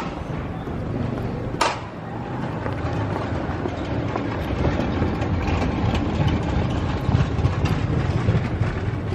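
Steady low rumble of city street traffic, growing a little louder after about two seconds, with a single sharp click about one and a half seconds in.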